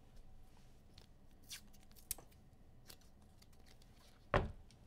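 Trading cards and pack wrappers being handled: faint scattered ticks and rustles, then a sharp knock near the end.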